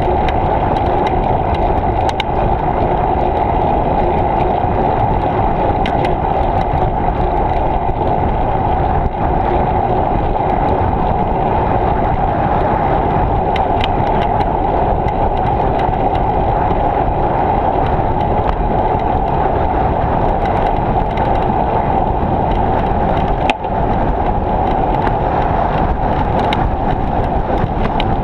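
Steady rushing noise of a bicycle ride picked up by a GoPro action camera, with scattered small clicks and rattles.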